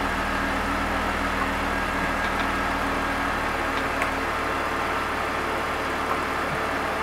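BMW E46 3 Series straight-six engine idling steadily, with a newly replaced DISA intake valve working as it should.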